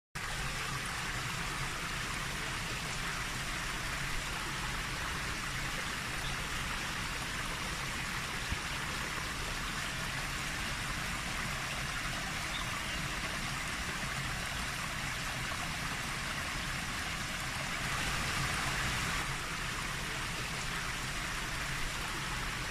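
Rushing white water pouring out below a reservoir's overflowing spillway, a steady rushing noise.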